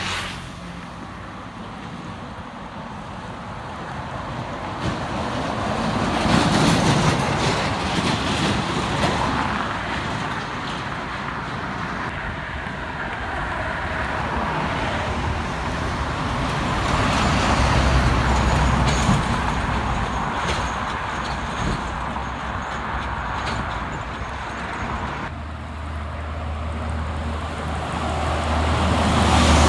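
Heavy trucks passing one after another on a highway, engine and tyre noise swelling and fading with each pass. The loudest passes come about a quarter of the way in, past the middle and at the end, where a low steady engine drone builds.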